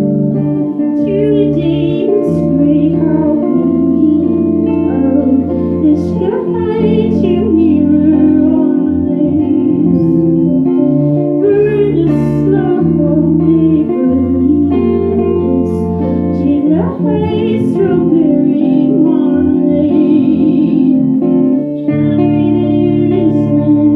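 Live music: singing with guitar accompaniment.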